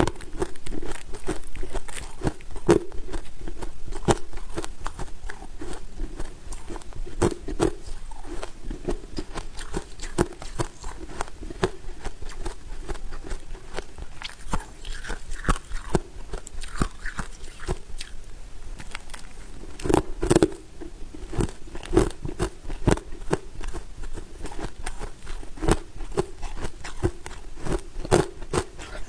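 Powdery freezer frost being bitten and chewed: a steady run of crisp crunches, with a burst of louder crunching bites about two-thirds of the way through.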